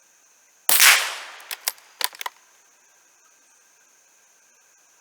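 A single shot from a Savage B22-V bolt-action .22 LR rifle with a short echoing tail, followed by a quick series of sharp metallic clicks as the bolt is worked.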